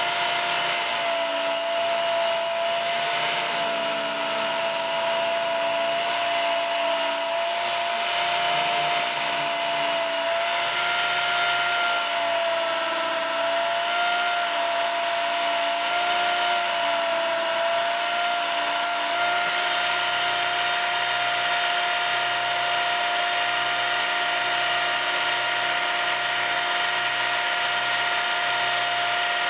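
Work Sharp belt sharpener's motor running steadily with a high whine and the hiss of its abrasive belt as the steel edge of an ice auger blade is ground. The whine wavers slightly in pitch for most of the time, then holds steady near the end.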